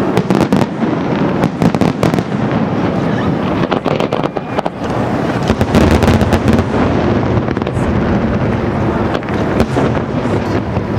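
Aerial fireworks display: dense rapid crackling and popping of comets and shells going off, with heavier low booms swelling in about halfway through.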